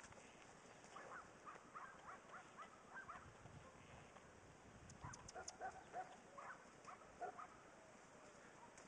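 Near silence with faint, short, high-pitched whimpers from a dog, coming in two clusters: about a second in and again about five seconds in.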